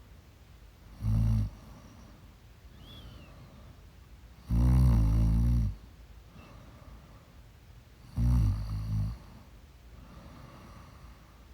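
A woman snoring in her sleep: three loud snores a few seconds apart, the middle one the longest, with quieter breathing between them.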